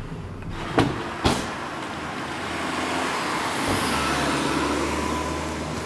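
Car sounds: two sharp clicks about a second in, then the noise of a car's engine and tyres that swells and holds steady.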